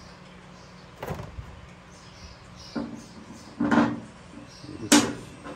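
Four separate knocks and clunks from tools and parts being handled at a workbench, some ringing briefly; the last is a sharp click.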